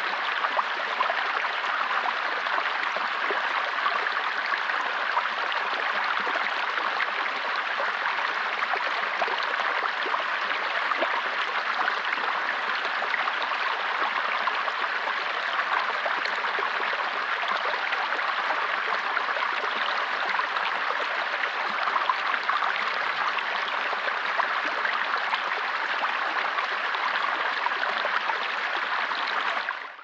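Small rocky stream running over stones in a shallow spill, a steady rush of water with no change.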